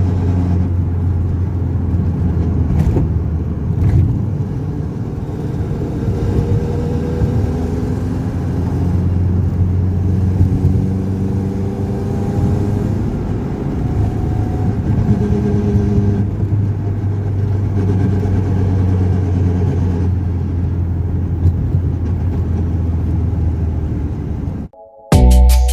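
The rebuilt Mivec engine of a Proton Wira running at a steady idle, with several short, gentle rises in revs.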